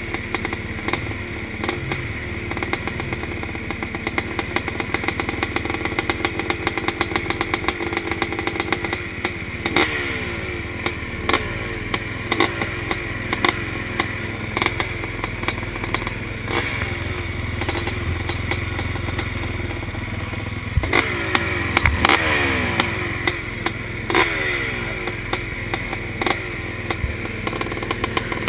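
Several motocross bikes' engines running together at idle and being blipped, each short rev falling quickly back to idle, with a mechanical clatter. The revving comes about once a second from about a third of the way in and is loudest a little past the middle.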